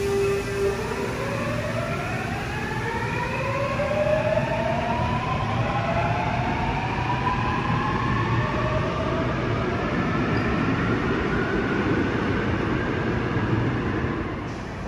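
Seoul Subway Line 8 electric train pulling out of the station. Its motor whine climbs in pitch in several overlapping glides as it accelerates, over a steady rumble of wheels on rail, and fades near the end.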